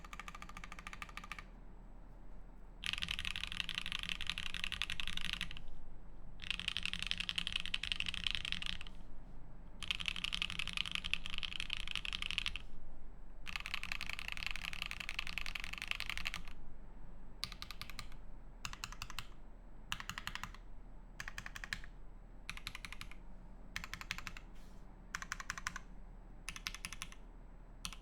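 Keycult No.1/65 mechanical keyboard with lubed H1 switches, a half polycarbonate plate and GMK keycaps being typed on: fast runs of keystrokes in stretches of a few seconds with short pauses between, then, about two-thirds of the way through, shorter separate bursts of keypresses.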